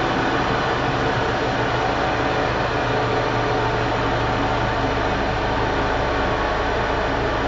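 Sharp top-loading washing machine running with a steady motor hum and whir.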